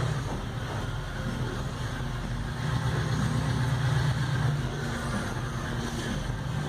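A steady low mechanical hum, like an engine running, with faint handling noise on top.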